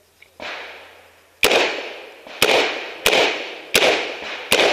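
Revolver fired five times, the first shot about a second and a half in and the rest coming about two-thirds of a second to a second apart, each shot trailing off in an echo.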